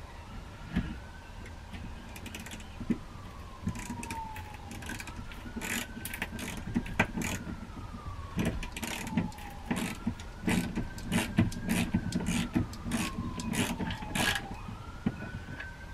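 A 1/4-inch drive hand ratchet with a 1/2-inch socket clicking in irregular runs as a lag bolt is driven through a steel mount bracket into the wall. A faint siren wails up and down in the background, about every five seconds.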